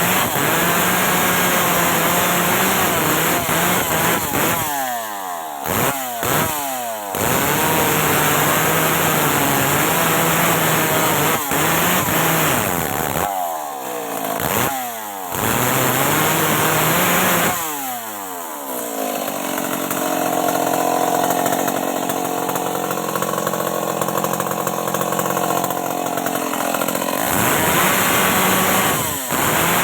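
Stihl MS 381 two-stroke chainsaw cutting wood at full throttle. The throttle is let off several times and the revs fall away, then it picks up again. For several seconds after the middle it runs slower and quieter before revving back up near the end.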